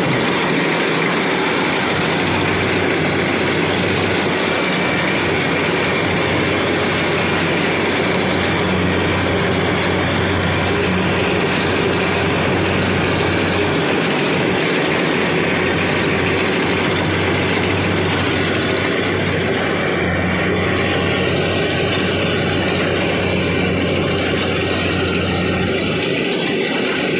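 The engine of a farm machine running steadily at the rice harvest, with a constant low hum under a dense mechanical noise. The low hum thins briefly about halfway through and again near the end.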